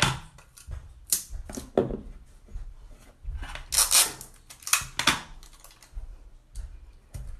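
Irregular small clicks, taps and rustles of hands handling small objects on a bathroom countertop, with a few sharper clicks scattered through.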